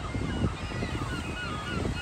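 Seabird colony on a sea stack calling: many short, overlapping squawking calls from numerous birds at once, over a low rumble.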